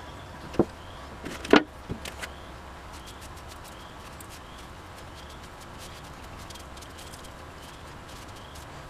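A few short knocks in the first two seconds, the loudest about a second and a half in, as a metal acetone can and the cast stapler parts are set down and handled on a bench, followed by faint rubbing as a microfiber cloth wipes the stripped metal parts down with acetone.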